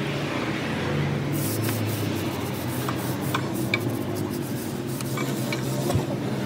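Hand scrubber rubbing back and forth over a car radiator's metal fins in a series of quick scratchy strokes, over a steady low mechanical hum. A single knock comes near the end.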